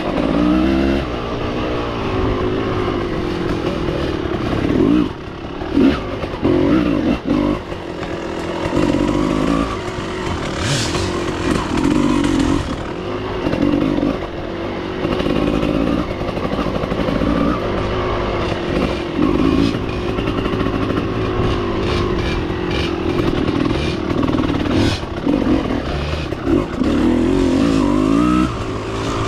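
Off-road motorcycle engine being ridden along a trail, its pitch rising and falling over and over as the throttle is worked and gears change. Occasional sharp knocks and clatter cut through it.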